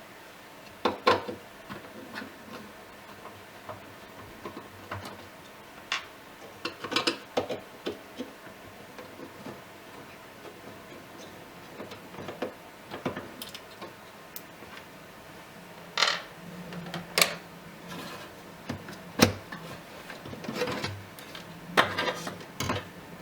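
Irregular clicks, knocks and rubbing of plastic and metal parts as the DVD drive of a Lenovo H530s slim desktop is unlatched and worked out of its bay. The clicks come at uneven intervals with quiet gaps between, the sharpest a little after the middle.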